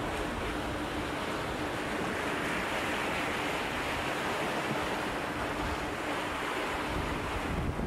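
Choppy bay water washing and splashing against shoreline boulders, a steady rush of surf, with wind buffeting the microphone in low rumbles. A faint steady hum sits underneath.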